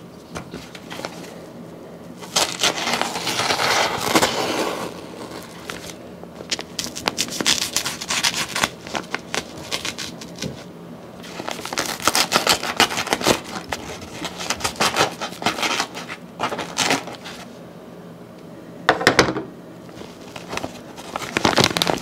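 Brown paper LindHaus vacuum cleaner bag being cut and torn open along its length, the stiff paper crinkling and crackling in several spells.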